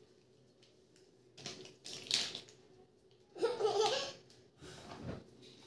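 Plastic pieces of a snap-together magic ball toy being handled, with short clicks and rustles. About three and a half seconds in, a brief wavering vocal sound like a laugh.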